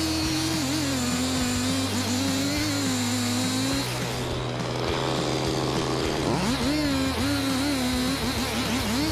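Two-stroke chainsaw engine running at high revs, its pitch repeatedly sagging and recovering as the chain bogs in the cut. About four seconds in, the engine tone drops out under a rougher, noisier stretch, then revs back up near the seven-second mark.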